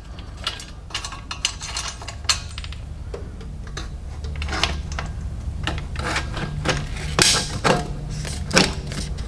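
Irregular light metallic clicks and clinks of a truck's breather light brackets being slipped in behind their mounting bolts, over a steady low hum.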